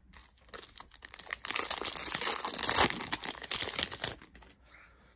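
Foil trading-card pack being torn open and crinkled in the hands: a dense run of crackling that starts about half a second in, is loudest in the middle and dies away after about four seconds.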